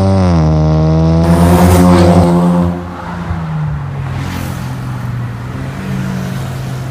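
2020 Ford Mustang's 2.3-litre turbocharged four-cylinder with a full turboback exhaust, accelerating with its note rising. About a second in it passes close by loudly for a second or so, then its exhaust note carries on more quietly as it drives away.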